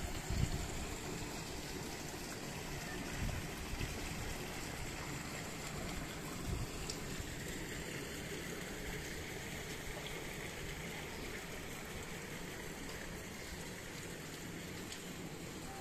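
Running water: a fountain spout pouring, then a shallow stone-lined brook flowing steadily over pebbles. A few short low bumps stand out, the strongest about half a second in.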